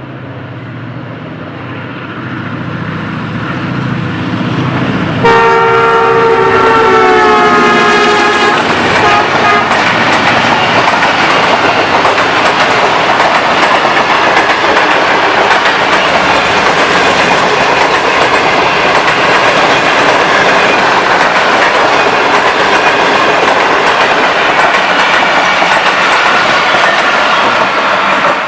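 A ZCU 30 diesel-electric locomotive hauling an express passenger train approaches with a rising rumble and sounds its horn, a multi-note chord held for about three seconds whose pitch drops slightly as it passes. The long train of coaches then rushes past at speed with loud, steady wheel clatter on the rails, starting to fade near the end.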